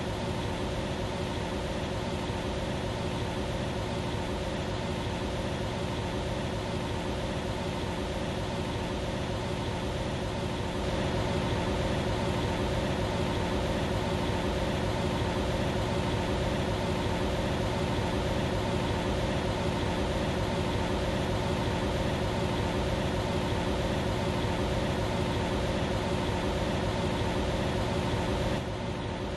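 Bryant Legacy Line furnace running: a steady rush of air with a low hum and a steady tone, growing a little louder about eleven seconds in.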